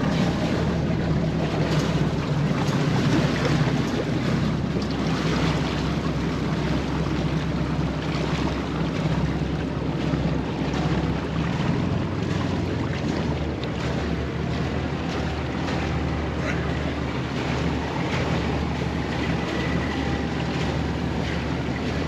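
A boat's engine running steadily at speed, a low hum under the rush of water along the hull, with wind buffeting the microphone.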